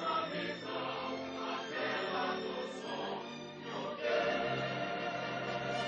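Background music with a choir of voices singing long held chords.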